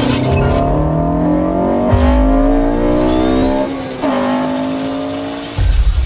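Car engine accelerating hard through the gears: the pitch climbs, drops at an upshift about two seconds in and again about four seconds in, then climbs again. A deep boom comes in near the end.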